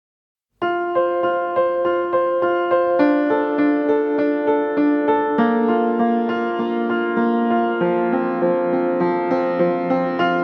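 Background music, a piano or electric-piano tune with repeated notes, starting abruptly about half a second in after total silence.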